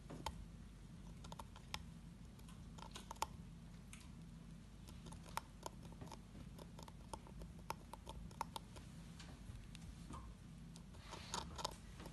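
A hamster nibbling, making quick, irregular little clicks and crunches, with a thicker cluster of them a little before the end, over a low steady hum.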